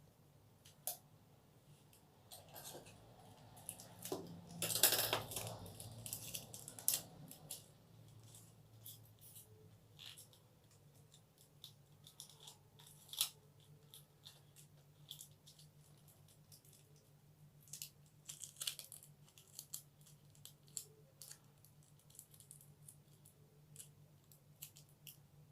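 Adhesive tape being pulled off the roll and torn, loudest about five seconds in, followed by scattered faint clicks and crinkles of the tape being handled and wrapped, over a steady low hum.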